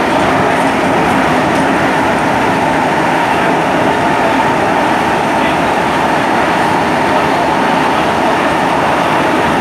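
SMRT C151 metro train running steadily at speed, heard from inside the carriage: an even rumble and roar of wheels on rail and the running gear, with no change in pitch or speed.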